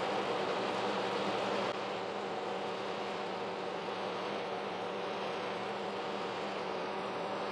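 Kearney & Trecker horizontal milling machine running a large slitting saw through thick CPVC plastic: a steady machine drone with the continuous hiss of the blade cutting.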